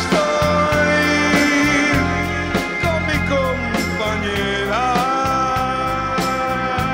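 Live rock band playing an instrumental passage: a lead melody with bending, sliding notes over keyboards, bass and a steady drum beat.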